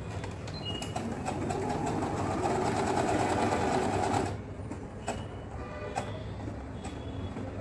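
Usha Dream Maker 120 computerized sewing machine stitching the letter M pattern on its own, motor and needle running steadily. About four seconds in the running gets quieter, with a few clicks.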